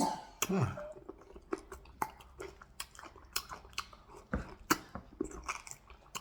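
Close-miked chewing with wet mouth smacks and clicks at an irregular pace, after a short falling "ah" near the start.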